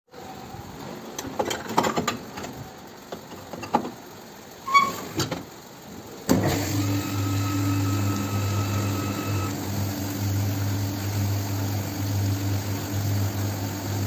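Dishes and a plastic rack clattering as the rack is loaded into a commercial undercounter glass washer, with a short beep. At about six seconds a knock, then the machine starts running with a steady low hum and a wash of spray, and a thin whine for the first few seconds.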